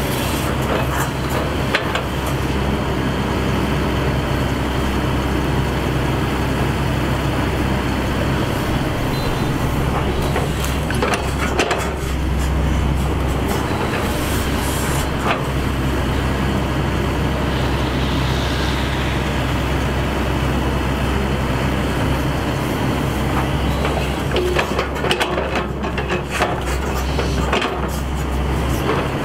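Shantui ME210LC-1 crawler excavator's diesel engine running steadily under load as it digs, with occasional clanks of the bucket and boom.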